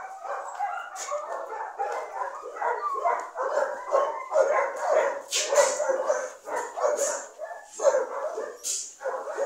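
A dog whining and yipping in a nearly continuous run of short, high cries.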